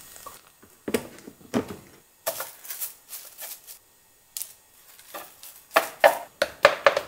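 Plastic rice paddle scooping sticky yakbap out of a rice cooker's inner pot and spreading it onto a plastic-wrap-lined wooden tray: irregular clicks, taps and scrapes, coming quicker in the last couple of seconds.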